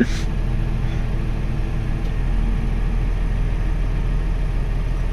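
Farm vehicle engine running steadily at a low, even pitch.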